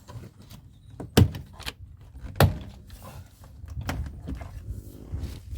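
Plastic retaining clips of a BMW E28 door trim panel snapping free as the panel is prised off the door: two sharp snaps about a second apart, with lighter clicks and handling noise after them.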